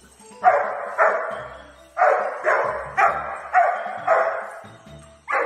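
A dog barking: about eight sharp barks, spaced roughly half a second to a second apart.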